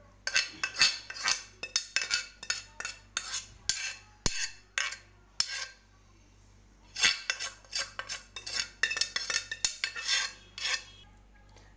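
A spoon scraping and clinking against a steel strainer as boiled chana dal is stirred in it to drain. The strokes come quick and repeated, with a pause of about a second near the middle.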